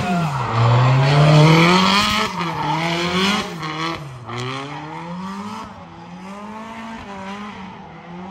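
Drift car's engine revving hard through a slide with tyre squeal. The revs climb, drop back sharply twice as the throttle is worked, then climb again while the car grows fainter.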